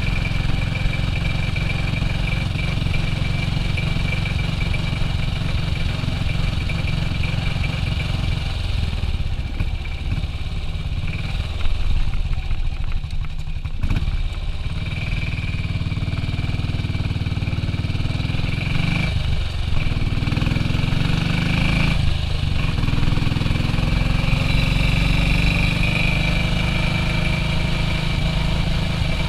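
A 1967 BSA B40 WD's single-cylinder four-stroke engine under way. It eases off around the middle, then pulls away, its pitch rising through the gears with short breaks at two gear changes, about 19 and 22 seconds in.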